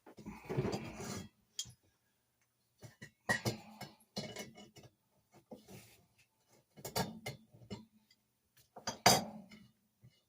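Small metal lantern parts clinking and knocking as they are handled and set down, with a short scraping noise near the start and a few sharper knocks spread through.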